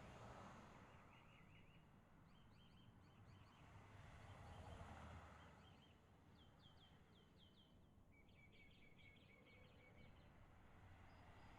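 Faint songbirds singing: several short phrases of quick repeated chirps, one run of falling notes near the middle, over a low steady background rumble.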